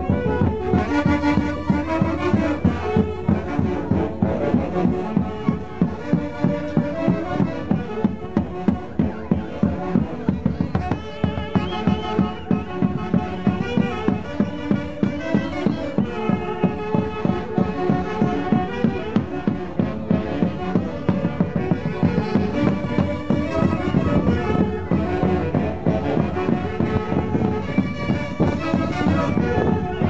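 Andean folk orchestra playing live, melody lines over a steady, evenly pulsing beat.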